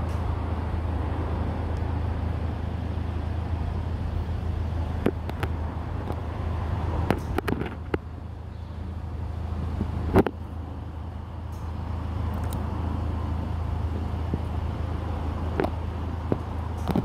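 Steady low hum with a rumbling background, like traffic or a running motor, broken by a few sharp clicks, the loudest about ten seconds in.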